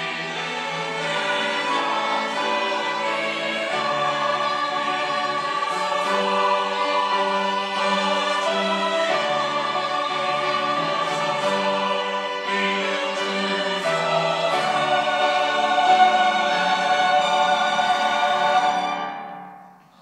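Mixed church choir of men and women singing a hymn anthem with string accompaniment. It swells to its loudest near the end, and then the final chord fades out.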